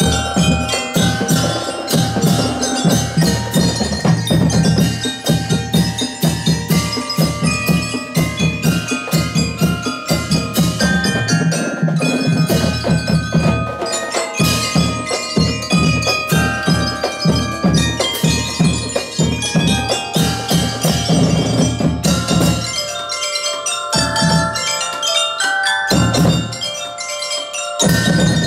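Drum and lyre corps playing: a row of bell lyres ringing out the melody in quick metallic notes over a steady beat of snare and bass drums. About three-quarters of the way through, the drums drop back for a few seconds, leaving mostly the lyres, then come in again near the end.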